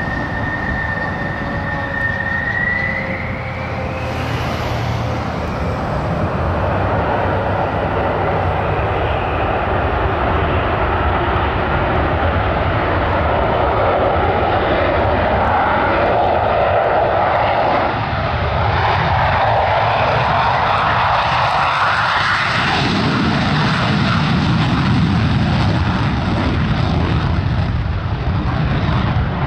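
Fighter jet taking off on afterburner: a turbine whine rising in pitch over the first few seconds as the engine spools up, then loud continuous jet noise as it rolls and lifts off, with a deep rumble that swells in the last several seconds as it climbs out.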